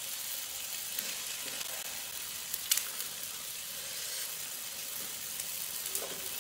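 Pork belly sizzling in a hot grill pan: a steady frying hiss with a few sharp pops of spitting fat.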